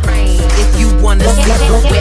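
Loud background music with a heavy bass line.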